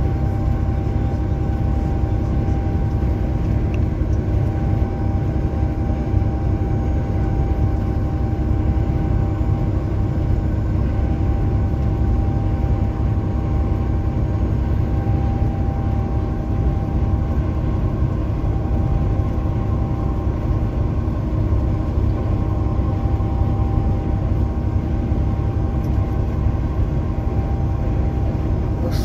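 Heavy truck cab at highway speed: a steady drone of engine and road rumble, with a faint constant hum running through it.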